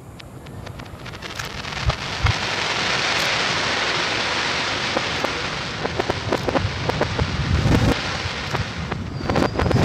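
Fireworks played backwards: a dense crackling hiss swells up over a few seconds and hangs, then gives way to scattered sharp pops and crackles in the last few seconds.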